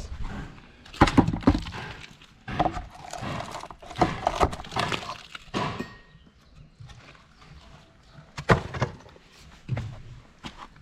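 Sharp wooden knocks and clatter of timber formwork boards being struck and worked loose, irregularly spaced, with the loudest hits about a second in and again near the end.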